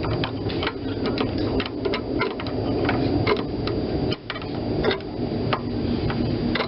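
Irregular metallic clicks, several a second, of a hand tool working loose a carburetor mounting bolt on a Tecumseh small engine.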